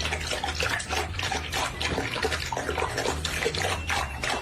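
Water splashing, a dense run of quick irregular splashes.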